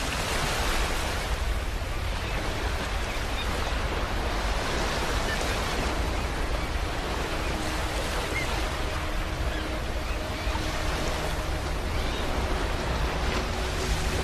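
Ocean waves breaking and washing on a beach, a continuous surf rush that swells and eases every few seconds. Faint steady tones join in the second half.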